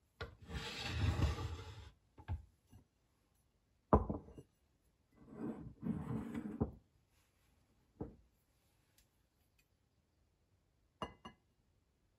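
A ceramic bowl and jug being set down and slid on a wooden kitchen table: a long scraping slide at the start, a sharp knock about four seconds in, another slide, then a light knock and two quick clicks near the end.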